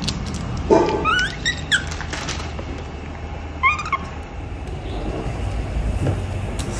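Baby macaque giving short, high squeaks that rise in pitch: a quick run of three about a second in, and another pair near four seconds in.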